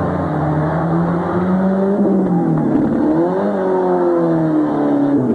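Several demolition derby cars' engines running and revving at once, their pitch rising and falling, with a rise and fall about three seconds in, over a steady din.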